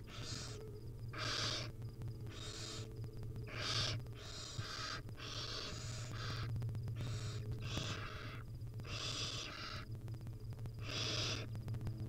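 Barn owl nestlings giving their hissing food-begging calls, a sign that they are hungry. The rasping hisses come about once a second and sometimes overlap, over a steady low hum.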